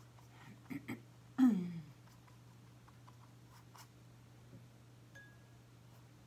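A short wordless voice sound, falling in pitch and lasting about half a second, with two brief sounds just before it. Faint light ticks of a wet paintbrush working on canvas follow.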